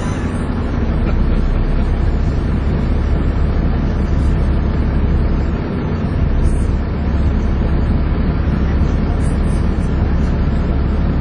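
Volvo B7TL double-decker bus's seven-litre six-cylinder diesel working hard under heavy throttle, heard on board: a steady deep drone with the vacuum-cleaner-like 'hoover' whine, dipping briefly a little before the middle.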